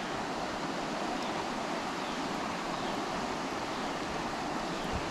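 Shallow river current running over rocks: a steady rush of water.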